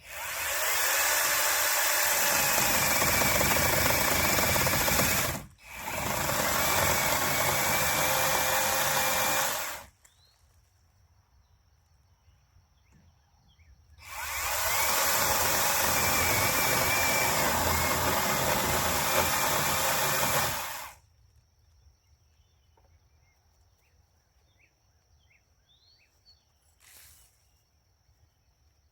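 A $20 angle grinder running and grinding into a log's saddle notch, in three runs: about five seconds, a brief stop, about four more seconds, then after a four-second pause a run of about seven seconds. Its whine dips and rises as it bites into the wood.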